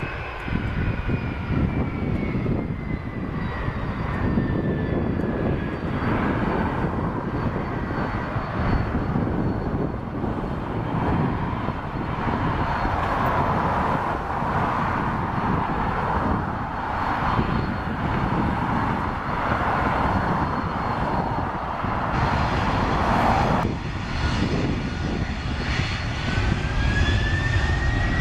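Boeing 767-300 jet engines running loud and steady on the runway, with a whine that falls in pitch over the first few seconds. The sound changes abruptly about three-quarters of the way through, and a rising whine near the end marks the engines spooling up for the takeoff roll.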